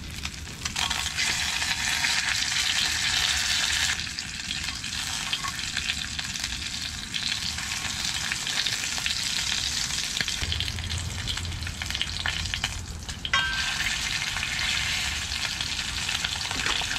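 Yellow perch and its roe frying in melted butter in a cast-iron skillet: a steady, crackling sizzle. It eases a little after about four seconds.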